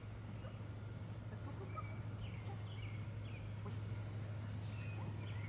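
Backyard ambience: a steady low hum with a thin steady high whine above it, and a few short bird chirps in the second half.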